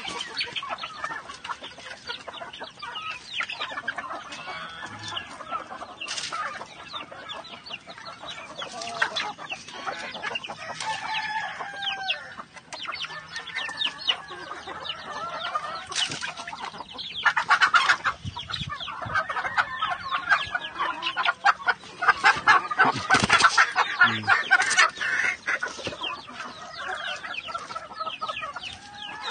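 A flock of heritage chickens clucking and calling while they peck at feed, with a busier, louder stretch of calls about two thirds of the way through.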